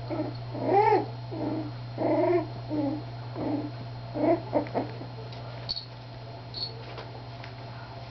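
Three-week-old miniature schnauzer puppies whimpering: a string of short calls that rise and fall in pitch over the first five seconds, the loudest about a second in, then a few faint high squeaks. A steady low hum runs underneath.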